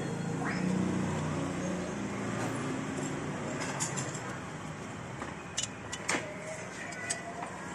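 Low engine hum of a passing motor vehicle, strongest in the first couple of seconds and then fading, followed by a few sharp clicks as parts inside a photocopier are handled.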